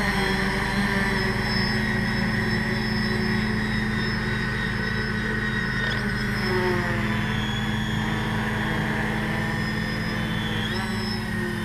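Large multirotor drone hovering: a steady hum of its electric motors and propellers. A high motor whine shifts in pitch about six seconds in and again near the end as the craft yaws on full yaw input.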